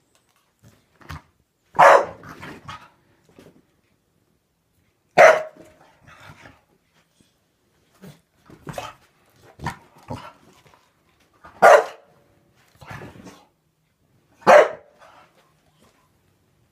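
A Staffordshire bull terrier barking at soap bubbles: four loud, sharp single barks a few seconds apart, with quieter short sounds between them.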